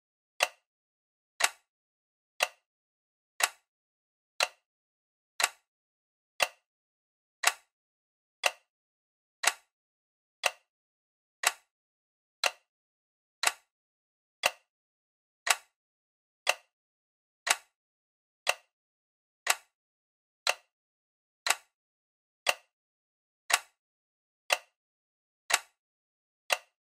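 Ticking sound effect, like a clock: one sharp tick every second, evenly spaced, with silence in between.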